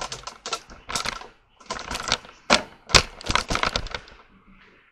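Kitchen handling clatter: a quick, irregular run of clicks and knocks that thins out and fades near the end.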